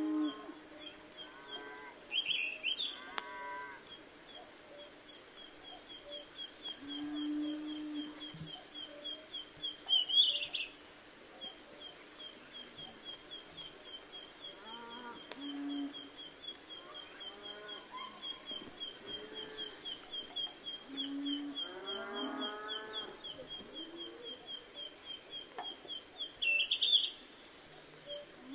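Animal calls: an even run of short high chirps, about three a second, with three louder high calls and several lower drawn-out calls now and then.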